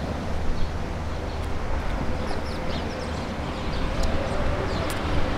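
Birds calling in a few short, high, falling chirps over a steady low rumble and outdoor background noise.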